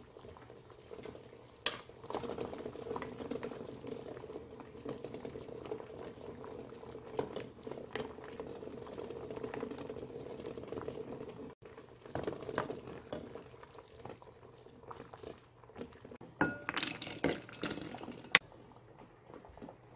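Water at a rolling boil bubbling in a small stainless steel saucepan with eggs in it. Near the end come a few sharp knocks and clinks.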